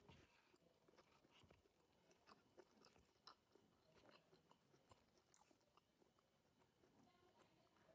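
Faint close-up chewing of raw vegetables: irregular small crunches and wet mouth clicks.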